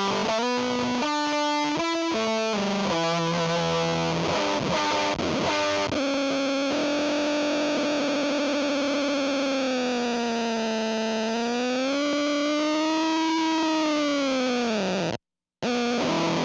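Electric guitar through a Fuzz Factory fuzz pedal, playing a run of distorted single notes for about six seconds. It then holds one long fuzzy tone that sweeps slowly down and back up in pitch. Near the end the sound cuts out suddenly, and a few notes start again.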